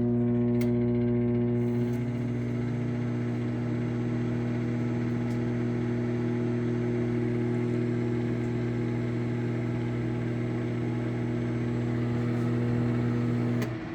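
Sharp Carousel SMC1662DS 1100-watt microwave oven running at 50% power: a steady deep electrical hum with fan noise. The deepest part of the hum cuts out just before the end.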